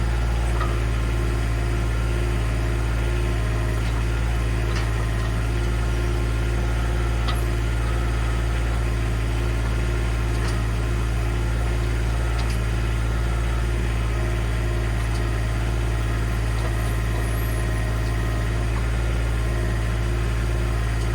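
Engine of an earth-moving machine running steadily at a constant speed, with a few faint clicks over it.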